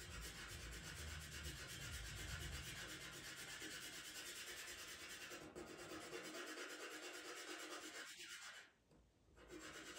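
A pastel pencil held on its side rubbing pastel onto Pastelmat paper in steady, faint scratchy strokes, with a short pause near the end.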